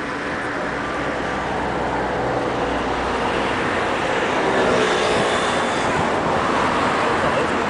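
Steady rumble and rush of a loaded inland cargo barge passing close below, growing gradually louder as its stern comes near.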